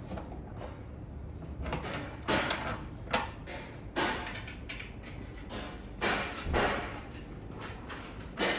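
About six short scraping and sliding noises, each starting sharply and fading within half a second, from chair parts being handled and shifted during assembly.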